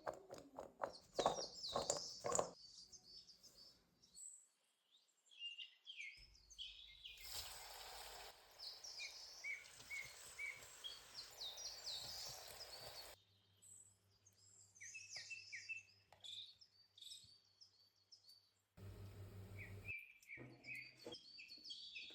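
Small birds chirping repeatedly, high and short. About a second in comes a quick run of sharp knocks, and later stretches of hiss cut in and out abruptly.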